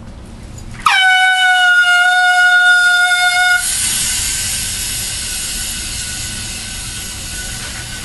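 Air horn rigged to an office chair goes off about a second in: one loud blaring tone that dips in pitch as it starts and holds for nearly three seconds. The tone then gives way to a loud hiss with a faint thin tone in it.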